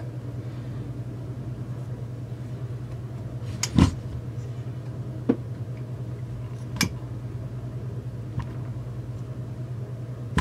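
Steady low hum with a few sharp clicks and knocks, the loudest about four seconds in. The knocks come from hands working the plastic housing of a chainsaw under assembly while pulling an anti-vibration mount through it with string.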